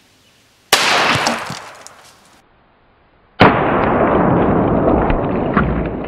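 A .45 ACP pistol, a Para Ordnance 1911, fires a single shot: a sharp crack about a second in that dies away over about a second. At about three and a half seconds the same shot is heard again slowed down, lower-pitched and drawn out, fading slowly.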